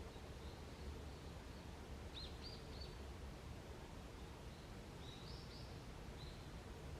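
Wild songbirds calling faintly in a forest: short high chirps in small clusters, three about two seconds in and a few more about five seconds in, over a steady low background rumble.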